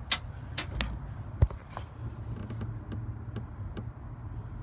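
Several sharp clicks and knocks from handling hoses and parts in a car's engine bay, the loudest about a second and a half in, over a steady low hum.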